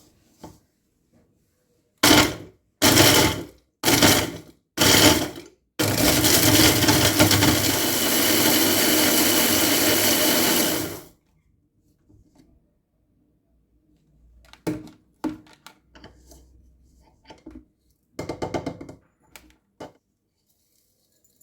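Electric kitchen blender pulsed four times in short bursts about a second apart, then run continuously for about five seconds, then stopped. A few light kitchen knocks and clinks follow near the end.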